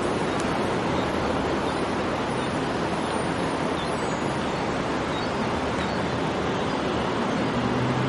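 Steady city traffic noise, an even din of vehicles on the streets below; a low engine hum comes in near the end.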